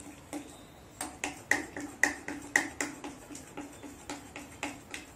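A hand beats idli batter of ground rice, urad dal and poha in a glass bowl. It makes quick rhythmic slaps and clicks, about four a second, and a few of them ring briefly off the glass.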